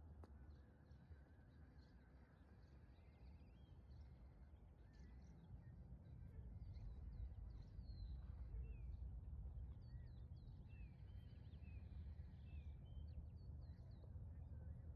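Faint outdoor ambience: a steady low rumble of wind on the microphone, with small birds chirping, short high chirps and quick falling calls that come more often from about five seconds in.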